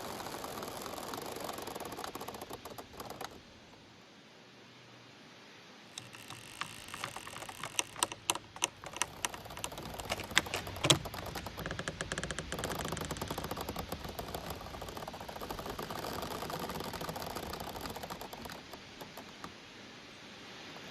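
Giant bamboo stems creaking, squeaking and clicking as they sway and rub against each other in the wind, over a steady rustle of leaves. A quick run of sharp clicks and knocks comes in the middle, the loudest about halfway through.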